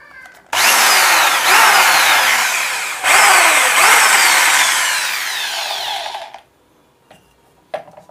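Electric hand drill with a half-inch twist bit boring into a wooden block, running loudly for about six seconds with a short break about halfway, its pitch falling and recovering several times as the bit bites. A few light knocks follow near the end as the block is handled.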